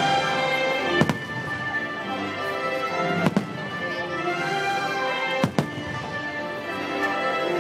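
Aerial firework shells bursting with three sharp bangs about two seconds apart, over loud show music with sustained tones.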